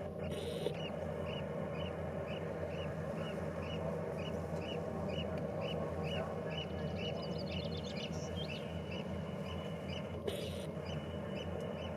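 Steady low rumble and hum of a ferry's engines. Over it runs an even series of short high chirps, about two a second, from an unidentified source, with two brief hissing bursts, one near the start and one near the end.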